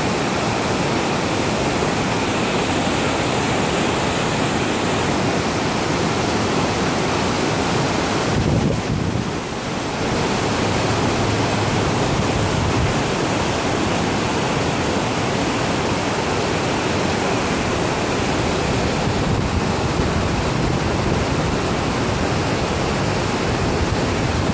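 The Budhi Gandaki river's white-water rapids rushing over rocks: a loud, steady wash of water noise, briefly dipping about nine seconds in.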